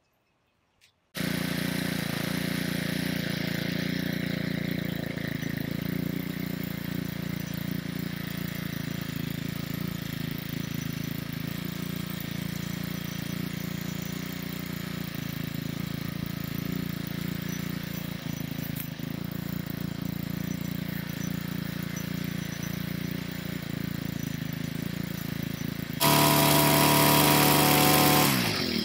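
Small gas-powered garden tiller engine running at a steady idle. Near the end it is revved up for about two seconds as the tiller is worked into the ground, then its pitch falls away.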